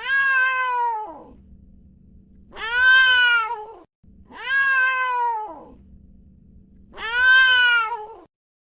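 Domestic cat meowing four times, each meow about a second long, rising and then falling in pitch.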